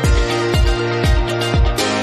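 Background music: an electronic dance track with a steady kick drum at about two beats a second.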